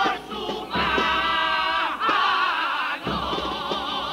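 Male comparsa chorus singing loudly in harmony with Spanish guitar accompaniment, ending on a long held note with vibrato.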